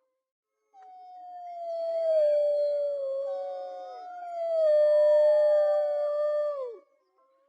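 Wolves howling: long, drawn-out howls that slide slowly down in pitch, with two or more voices overlapping. The howls begin about a second in and end together with a sharp downward drop near the end.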